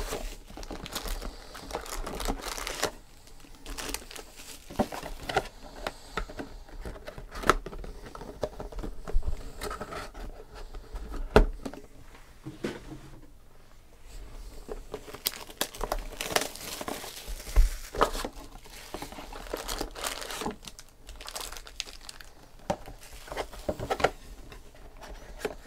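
Plastic shrink-wrap and foil card packs crinkling and tearing as trading-card boxes are unwrapped and opened, mixed with irregular sharp taps and clicks of cardboard boxes being handled.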